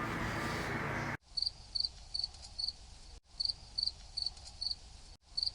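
About a second of room tone, then a cricket-chirping sound effect cut in abruptly: short high chirps evenly spaced at about two and a half a second, looped with a brief break twice. It is the stock 'crickets' awkward-silence gag.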